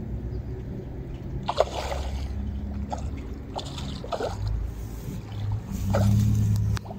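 Short splashes and slurps of water at the surface of a concrete canal where carp are swirling, about half a dozen, over a steady low rumble.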